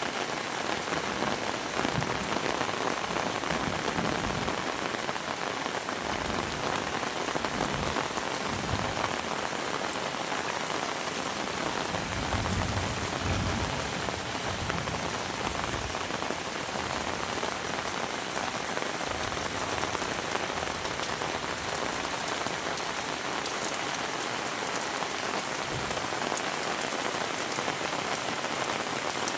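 Heavy rain falling steadily, with a brief low rumble near the middle.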